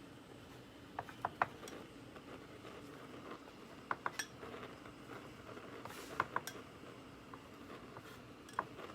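Kitchen utensils clinking against pans and dishes: sharp clinks in small clusters of two or three, a few seconds apart.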